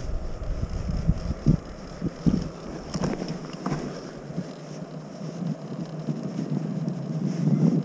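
Wind buffeting the microphone, with heavy low gusts for the first few seconds, then easing to a steadier, quieter low rumble with a few light knocks.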